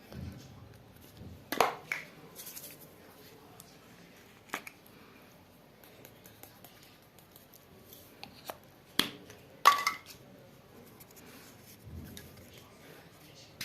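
Objects being handled, making a few sharp clicks and snaps spread apart, with the loudest cluster around nine to ten seconds in.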